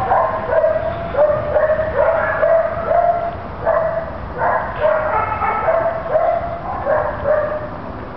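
Dogs kept in an animal shelter's kennels barking over and over, about a bark or two a second, tailing off near the end.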